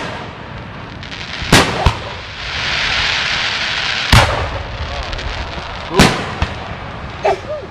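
Aerial firework shells bursting: four loud bangs, the first two close together about one and a half seconds in, then one at about four seconds and one at about six. A steady hiss rises between the first two bangs and the third.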